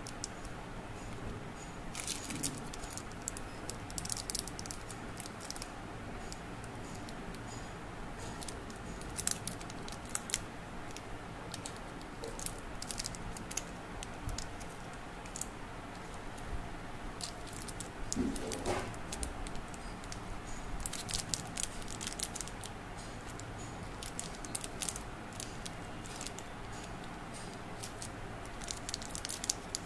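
Plastic wrappers of individually wrapped fruit jelly candies crinkling and rustling as they are handled and set down one by one, in irregular short crackles.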